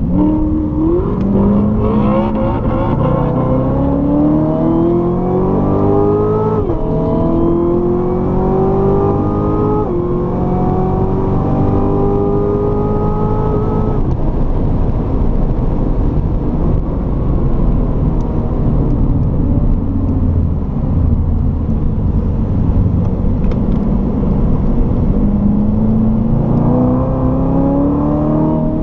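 Supercharged 6.2-litre V8 of a Corvette C7 Z06 with automatic gearbox accelerating hard, its note climbing through two upshifts where the pitch drops sharply. About fourteen seconds in the engine note fades under steady wind and tyre noise as the car lifts off, and near the end it climbs again under power.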